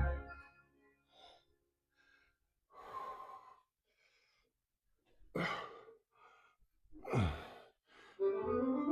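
A man breathing hard, catching his breath after a heavy leg set: three loud breaths about two seconds apart, the last a voiced sigh that falls in pitch. Background music stops at the start and comes back near the end.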